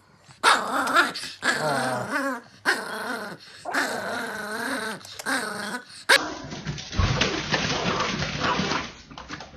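A chihuahua growling and snarling in long, wavering growls that rise and fall in pitch. About six seconds in, after a cut, a different small dog growls and barks in a harsher, rougher run.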